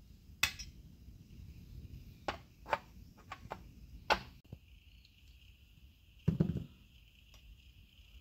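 Brass rifle cartridges clinking against the stainless steel pan of a digital reloading scale as they are set in and lifted out for weighing: several sharp clinks in the first four seconds, then a duller knock about six seconds in.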